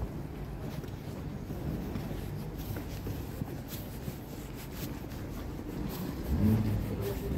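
City street ambience in a pedestrian zone: a steady low rumble of distant traffic and people, with scattered faint clicks and a brief louder low sound about six and a half seconds in.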